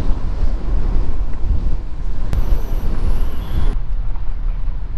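A car driving on a hill road, heard from inside with wind rumbling heavily on the microphone and road noise underneath. A sharp click comes about two seconds in, and the sound shifts about a second later.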